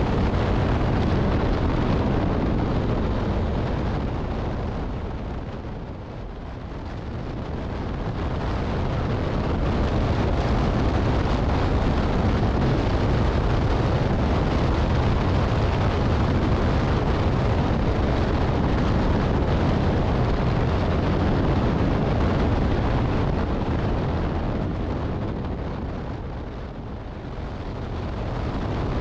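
Wind rushing over the microphone while riding the WMoto Gemma 125 scooter at speed. It dips twice, about six seconds in and again near the end.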